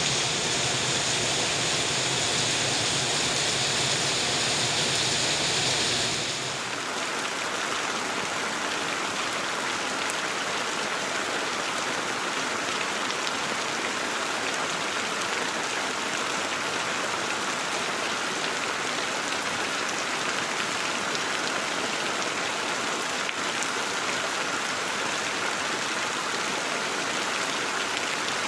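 Heavy rain falling steadily, an even hiss of water. About six seconds in the sound changes abruptly to rain falling on leafy plants and wet ground, thinner and without the low rumble.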